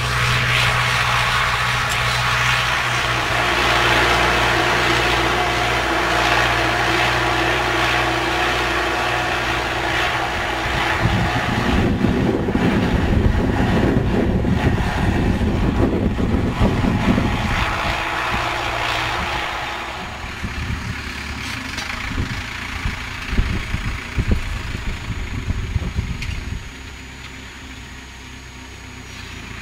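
MTZ 892 tractor's diesel engine running steadily under load while pulling a reversible plough through stubble. The sound drops in level twice in the second half, with a few knocks, and is quieter near the end as the tractor pulls away.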